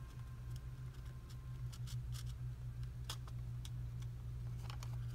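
Scattered faint clicks and ticks of beads and string being handled while a bead is threaded, over a steady low hum.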